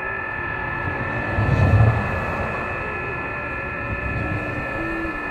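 HF transceiver's speaker playing weak-signal digital-mode traffic: several steady tones at different pitches, some stepping slightly up and down, over band hiss. A low rumble swells up briefly about a second and a half in.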